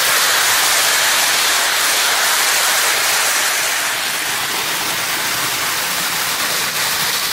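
Lionel Hudson 4-6-4 toy train running on three-rail O-gauge track, a steady rushing, rolling noise from the motor and wheels on the rails. It is a little louder at first as the train passes close by and eases slightly as it moves away.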